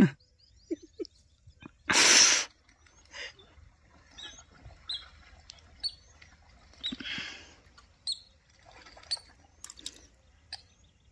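Scattered short, faint, high bird chirps by a reedy pond, with one loud brief rush of noise about two seconds in.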